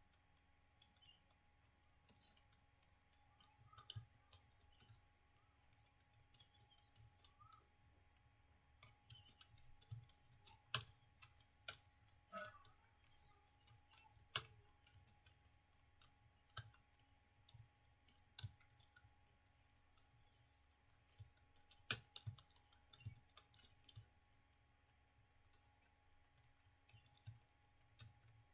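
Faint computer keyboard keystrokes, slow and irregular: single clicks spaced out with short pauses, as in careful, slow typing.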